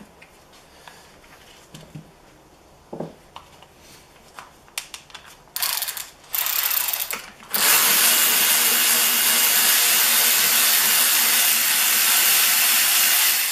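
Cordless electric ratchet backing out the 10 mm clutch cover bolts. First come a few light clicks of handling, then two short runs of the motor about halfway through, then one steady run of about six seconds.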